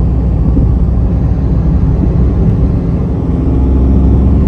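A passing train rumbling, a loud, steady rumble.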